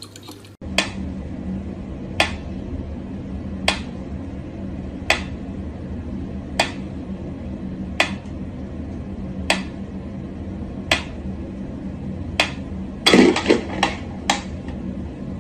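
Mechanical metronome ticking slowly and evenly, about one tick every second and a half. About 13 s in comes a sudden loud clatter, followed by a couple of quicker clicks.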